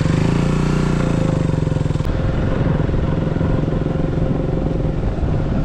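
Motorcycle engine running steadily while riding along, its exhaust pulsing evenly.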